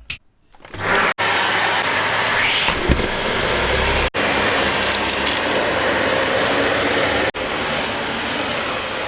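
Newly assembled Dyson vacuum cleaner switched on about a second in and running with a steady, loud motor and suction noise, broken by a few split-second gaps.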